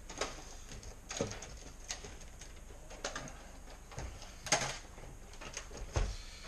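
Handling knocks and rattles from a Losi Lasernut U4 RC rock racer being lifted, turned over and set back down on a table: about four sharp knocks a second or two apart.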